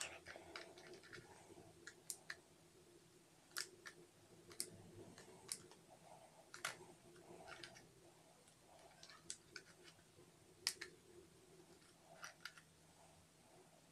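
Faint, irregular small plastic clicks and taps of a camera being handled as a battery and SD card are pushed into their compartment, the card not yet seating properly.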